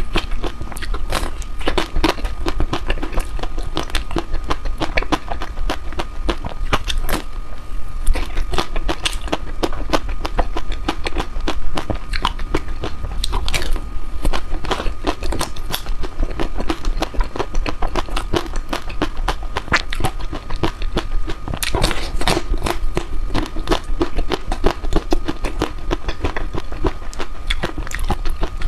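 Person biting and chewing chocolate ice cream, with a continuous run of sharp crackly clicks and crunches.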